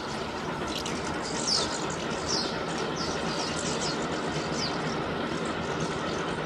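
Long train running along a hillside track across a river, a steady rumbling hiss. Birds chirp over it, short falling calls about once a second.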